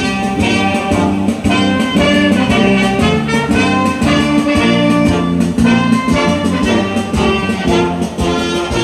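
Ceremonial funeral music led by brass instruments, a melody moving over sustained low notes.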